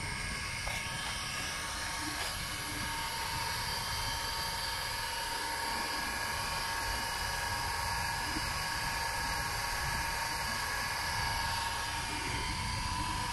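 Fountain running: a steady motor whine over the constant rush of the water jet.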